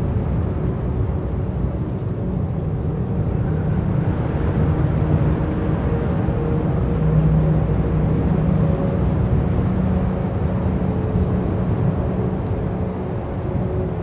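Wind buffeting the microphone, a rough low rumble that rises and falls, with a few steady low tones held underneath.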